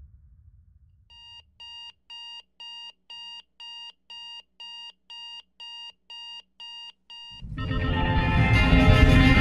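Digital alarm clock beeping: a steady run of short, high, identical beeps, about two and a half a second, that stops after about six seconds. Loud music then swells in and builds near the end.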